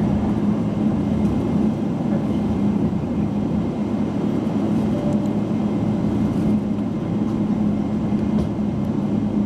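Boeing 777's jet engines running steadily, heard from inside the passenger cabin as an even rushing noise with a steady low hum.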